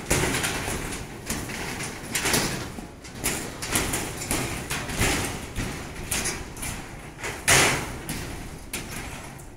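Irregular knocks and scrapes of people walking on corrugated steel floor decking laid with rebar, one louder knock about seven and a half seconds in.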